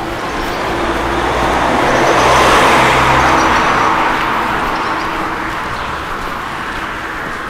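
A car passing by on the street, its tyre and engine noise swelling to a peak about two and a half seconds in and then slowly fading away.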